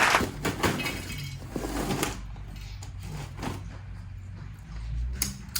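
Goldfish crackers crunched while chewing close to the microphone: a dense crunching at the start, then scattered single crisp crunches.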